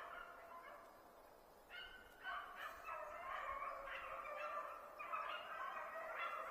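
A pack of beagles baying as they run a rabbit, several hound voices overlapping. The baying thins out about a second in and swells again from about two seconds in.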